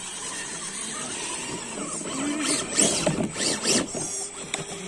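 Electric motor and gears of a radio-controlled crawler truck whining as it climbs over tree roots and dirt. The whine rises and falls in pitch with the throttle from about halfway through.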